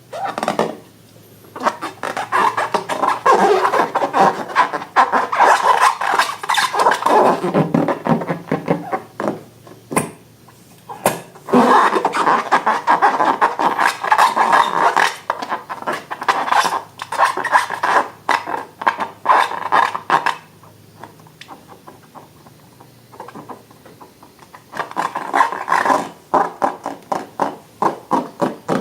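Slime being worked by hand, a dense run of small wet clicks and crackles in three long stretches separated by quiet pauses.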